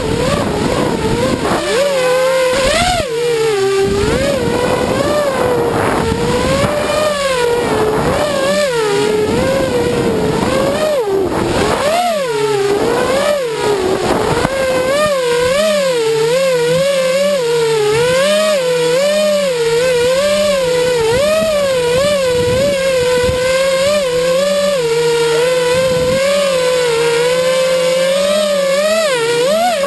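FPV quadcopter drone's motors and propellers whining, the pitch rising and falling constantly with throttle. In the first half there are several sharp swoops down and back up in pitch, with a rushing noise under them.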